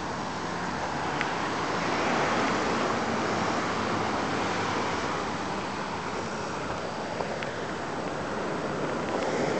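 Wind buffeting the microphone, swelling a little and easing, over a faint steady low hum.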